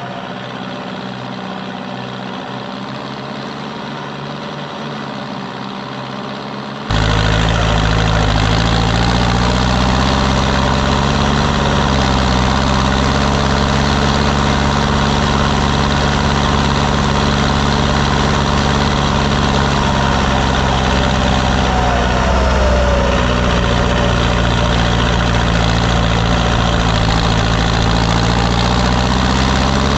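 Fendt 510C tractor's diesel engine running steadily while pulling a roller over grassland. About seven seconds in the sound jumps abruptly louder and fuller, and the engine pitch sags slightly a couple of times.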